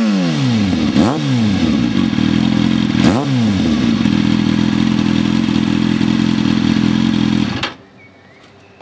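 Kawasaki ZX-6R inline-four idling through a Hurric Supersport aftermarket exhaust, blipped twice with quick throttle revs that rise and fall back, about a second in and about three seconds in. It then idles steadily until the sound cuts off sharply near the end.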